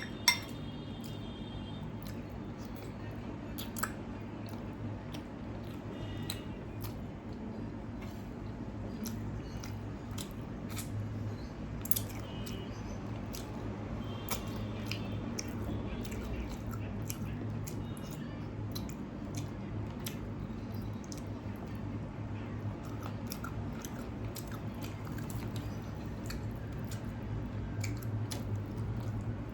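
A person chewing mouthfuls of panta bhat (cold soaked rice) with chicken curry, close to the microphone: scattered small clicks and wet mouth sounds over a steady low hum, with a sharp clink right at the start.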